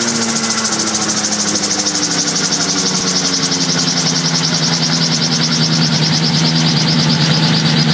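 Microlight helicopter's engine and contra-rotating rotors running steadily, with a fast, even beat. The engine pitch eases down a little as the sound grows slightly louder toward the end.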